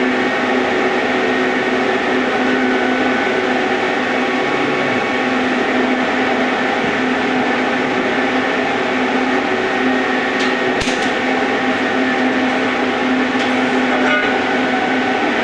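A machine running steadily: a constant hum with a hiss over it, unchanging in level, with a few sharp clicks near the middle and once more near the end.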